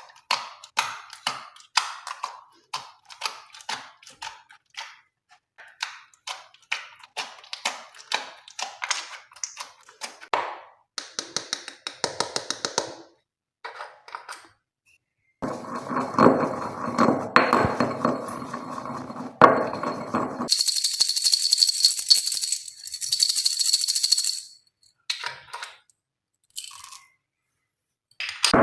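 Glossy slime being handled and mixed, with a long run of short sticky clicks and pops. Partway through come a few seconds of denser, louder crackling, then a stretch of high hiss and a few last clicks.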